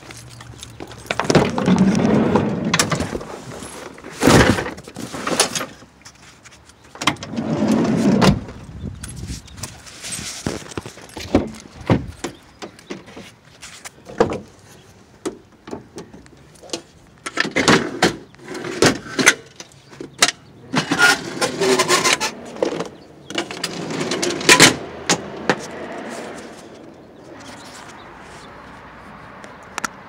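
Tools and gear being handled in a work van: a door opening, with repeated metal clanks, knocks and rattles as equipment is moved about.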